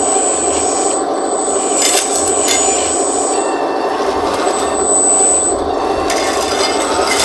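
A 1:14-scale Double E E116 hydraulic RC skid steer loader running: a steady electric hum from its hydraulic pump and motors, with a high whine that starts and stops several times as the controls are worked. A couple of short scrapes or clicks come about two seconds in.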